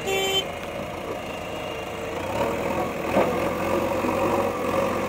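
JCB backhoe loader's diesel engine running, getting louder about two seconds in as the front bucket works into the soil. A single short alarm beep sounds at the very start.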